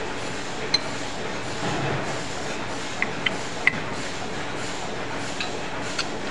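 Steel open-end spanner clinking against the hex nut that holds a turned PVC wheel on a lathe mandrel: a handful of short, sharp metallic clinks, the loudest about halfway through, over a steady machine hum.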